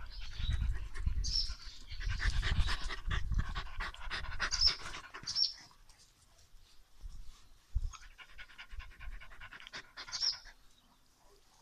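Small black-and-tan dog panting rapidly close to the microphone while being petted, with a few short high-pitched squeaks. Handling and rubbing noise is loudest in the first half and eases about six seconds in.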